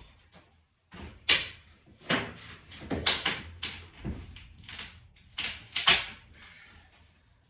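A run of irregular knocks and clatters, about ten in five seconds, each short and sharp.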